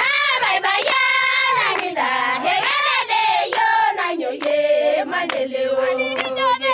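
Samburu villagers singing a chant together: high voices slide up and down over a long held lower note. A sharp tap sounds now and then.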